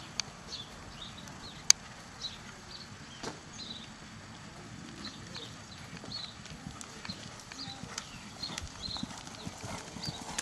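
Hoofbeats of a ridden horse moving over a sand arena, a steady run of dull thuds. A single sharp click stands out about a second and a half in.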